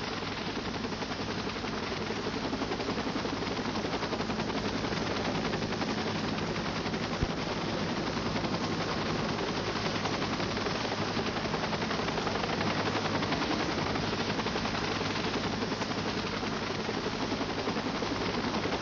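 Helicopter rotor blades chopping rapidly and steadily as the helicopter flies, with a steady low engine hum beneath.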